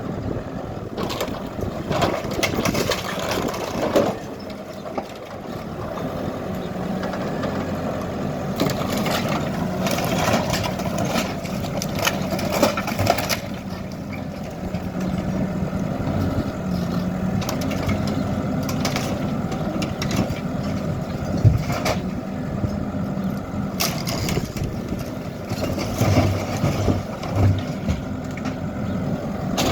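Hidromek K4 Alpha backhoe loader's diesel engine running steadily under work, with repeated crunching and knocking of broken masonry and debris as a building is torn down.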